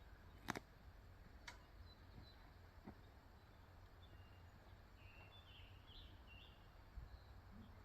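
Quiet outdoor ambience: a sharp click about half a second in and a softer one a second later, with a few faint bird chirps in the middle.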